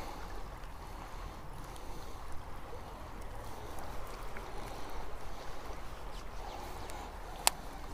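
High, fast river current running past the bank, a steady wash of water, with a single sharp click near the end.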